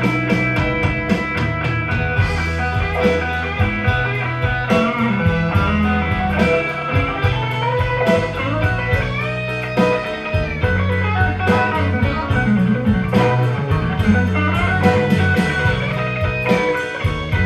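Instrumental break in a Tex-Mex country song: a lead electric guitar plays a solo with bent, sliding notes over a bass line and a steady beat.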